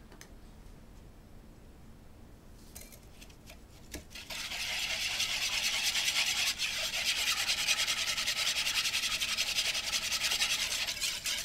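A wire whisk beating brown sugar into pineapple juice in a bowl, starting about four seconds in: rapid, steady scraping and swishing of the wires against the bowl and through the liquid.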